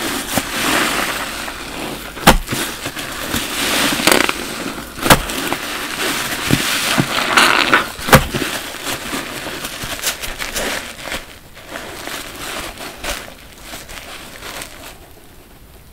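Layered bath sponge soaked in foamy soap suds being squeezed and wrung by gloved hands: wet squelching with crackling foam and dripping, and three sharp squelches about 2, 5 and 8 seconds in. The sound gets quieter over the last few seconds.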